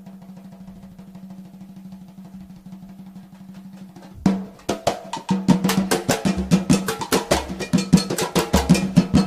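Drum intro of an Umbanda ponto song: quick, quiet drumming over a steady low hum, then loud, fast drumming comes in about four seconds in.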